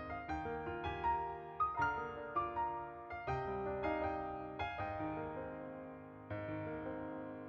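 Piano background music: a melody of struck notes over held chords.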